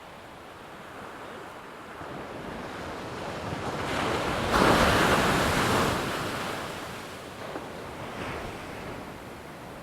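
An ocean wave surging in and breaking: a rush of noise that builds, peaks about halfway through and washes away, with wind on the microphone.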